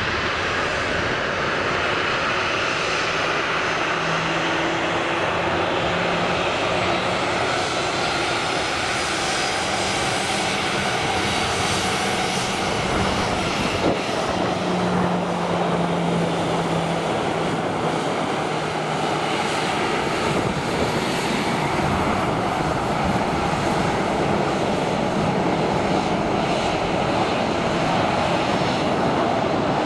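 Boeing 737's CFM56 turbofan engines running at taxi power: a steady jet rush with faint whining tones that drift slowly in pitch.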